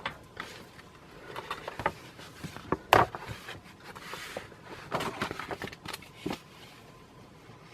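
Paper rustling and crinkling as a glossy catalog's pages are handled and turned, in short scattered bursts with a sharp snap about three seconds in.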